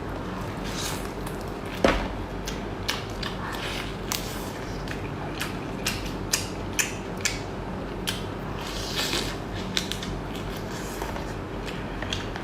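Handling and eating seafood: scattered small clicks and creaks of shell, utensils and food over a steady background hiss.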